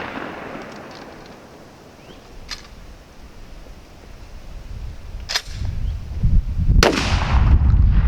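Remington 1100 semi-automatic 12-gauge shotgun: a faint click about two and a half seconds in, then two loud shots about a second and a half apart. A low wind rumble starts near the second half.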